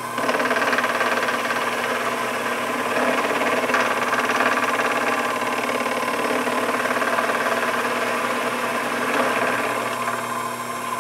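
Sherline benchtop milling machine cutting metal with a two-flute solid carbide end mill, a 20-thousandths-deep side pass. The steady motor and spindle hum lies under a dense, steady cutting noise, which comes in sharply right at the start.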